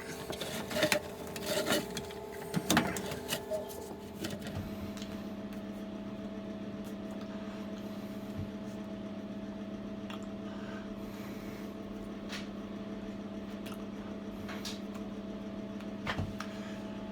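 Samsung washing machine: a few clicks and knocks, then a steady mechanical hum sets in about four seconds in.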